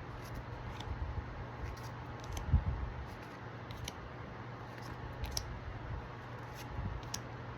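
Pokémon trading cards being handled and slid one past another, making scattered small clicks and rustles, with a single low thump about two and a half seconds in, over a steady low hum.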